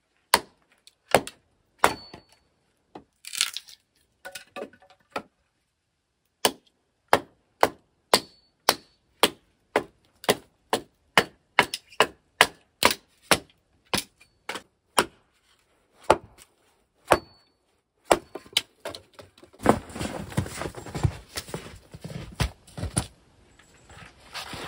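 A hatchet chopping firewood into kindling on a wooden chopping block: a long run of sharp single chops, about two a second at the quickest, broken by short pauses. Near the end comes a rougher stretch of clattering wood.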